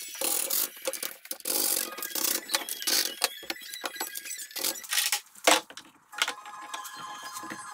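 Irregular clicking, knocking and rattling of clamps and wooden battens being handled on a surfboard glue-up jig, with one sharp knock about five and a half seconds in.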